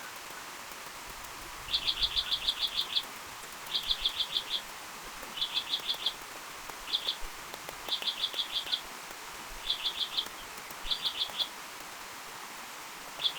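A small bird calling in short, quick trills of high, evenly repeated notes, about eight runs spaced a second or two apart, over a steady background hiss.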